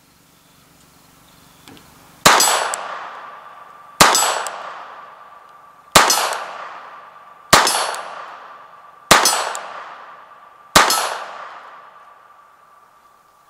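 Six shots from a Mauser Model 1914 pistol in .32 ACP, fired one at a time about one and a half to two seconds apart. Each shot is a sharp crack followed by a long echo that fades over more than a second, with a faint steady ringing tone between shots.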